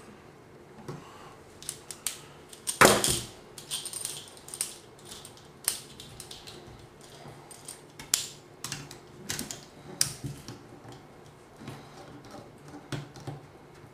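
Irregular metallic clicks and clinks of a bipod and its rail attachment being handled and fitted to a rifle's handguard, with a louder knock about three seconds in.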